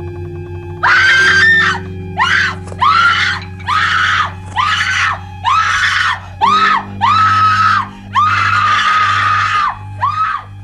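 A woman screaming in terror over and over, about a dozen short screams in quick succession with the longest near the end, over a low droning music chord.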